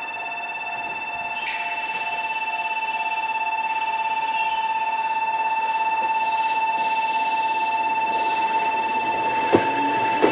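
An electronic warning bell rings steadily with a fast repeating pattern. In the second half come bursts of air hiss from the Meitetsu commuter train, then a sharp click near the end, and its motors begin a rising whine as it starts to pull away.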